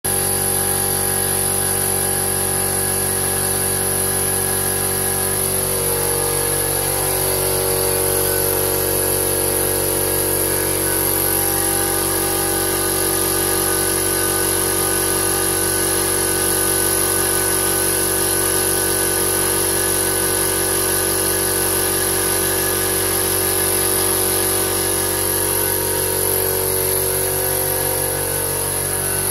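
Elephant 2 HP oil-lubricated air compressor with a 50-litre tank running steadily, its electric motor and piston pump making an even mechanical hum.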